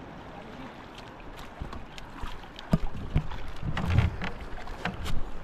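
Water sloshing around an outrigger boat. From about three seconds in there are scattered sharp knocks and splashes, with a low gust of wind on the microphone around four seconds in.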